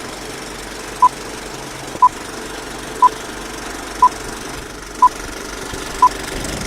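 Six short electronic beeps at the same pitch, evenly spaced one a second like a countdown, over a steady low rumble.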